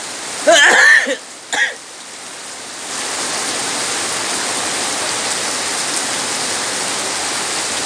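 Heavy rain falling, a steady hiss of water on the ground and porch that swells to full strength about three seconds in. A short, loud, pitched vocal sound comes about half a second in.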